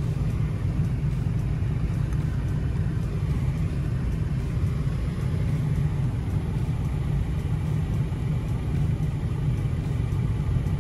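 Steady low rumble with a faint air rush inside a VW Golf 4's cabin, from the running car and its heater blower fan, close to the blower housing under the dash.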